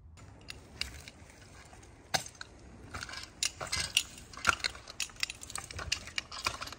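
Irregular clinks, knocks and crunching from a tree climber's gear and boots against a conifer trunk as he works his way up on a rope, quiet at first, with sharper knocks from about two seconds in.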